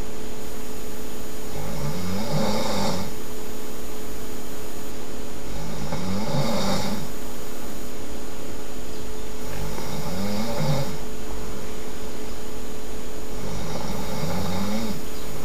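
A sleeping person snoring loudly, one snore about every four seconds, four in all, each lasting about a second with a wavering pitch.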